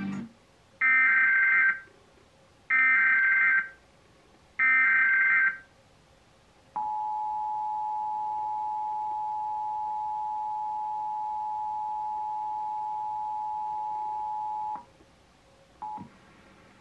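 Emergency Alert System Required Monthly Test played through a television's speaker. First come three short bursts of SAME header data, about two seconds apart, then the EAS two-tone attention signal held steadily for about eight seconds before it cuts off. A very short tone blip follows about a second later.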